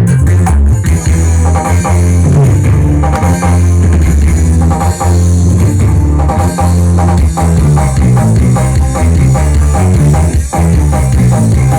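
Loud music with guitar and drums, played through a large sound system with very heavy bass.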